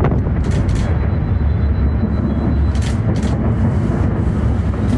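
Aerial fireworks bursting in a dense display: a continuous low rumble of booms, broken by four sharp cracks.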